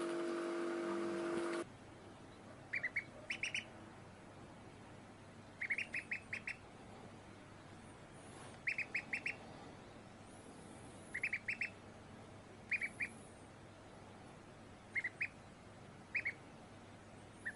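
Duckling peeping in quick runs of two to four short, high peeps, a new run every one to three seconds.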